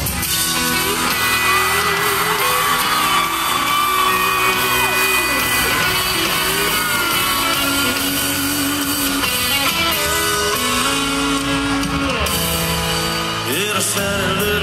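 Live country music from a band on an arena stage, heard from high in the stands: guitars and a male singer at the microphone.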